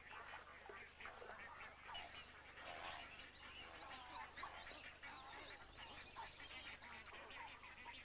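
Faint, dense chatter of many waterbirds calling at a nesting colony: a steady stream of overlapping short calls and chirps.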